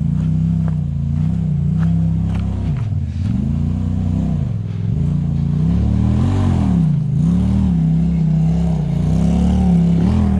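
Side-by-side UTV engine running under way, its pitch dipping and rising again several times as the throttle is eased off and reapplied.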